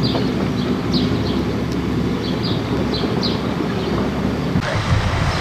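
Wind buffeting the microphone, a steady low rumble, with a few short high chirps over it. The sound changes abruptly near the end.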